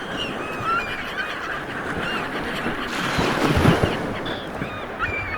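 Many birds calling in short chirps and whistles over a steady rushing noise, with a few low thumps about three and a half seconds in.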